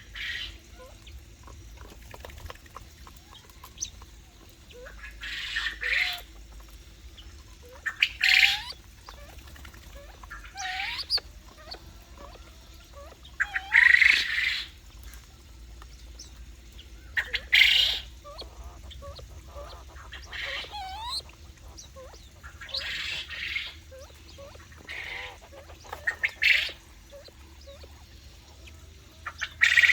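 Aviary birds calling: harsh, noisy squawks every few seconds, with soft, short rising chirps in between.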